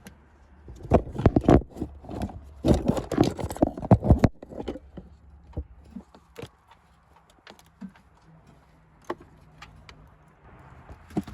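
A camera tripod and camera being handled close to the microphone: a run of loud knocks and rattles for about the first four seconds, then a few scattered faint clicks.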